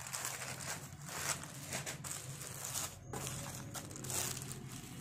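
Clear plastic polybags crinkling and rustling as packed T-shirts are handled and shifted, in an uneven run of crinkles with a brief break about three seconds in.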